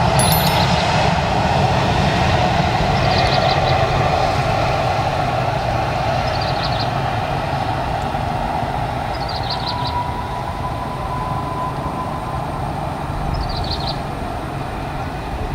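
Jet airliner engines rumbling steadily and slowly fading as the aircraft moves away.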